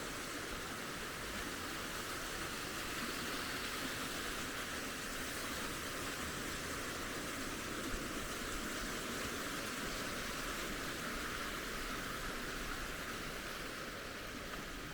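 Steady rushing water, with no change in level.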